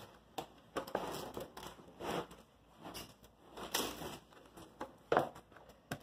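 Plastic stretch wrap crinkling and crackling in irregular bursts as it is pulled off a hand-held roll and drawn around a large wooden birdhouse. The loudest crackle comes about five seconds in.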